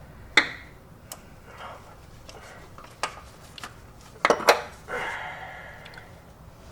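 Metal hand tools, sockets and a wrench, clinking against each other and the bolts while the starter mount bolts are being worked loose. There are scattered sharp clinks, the loudest a pair about four and a half seconds in, followed by a rattle lasting about a second.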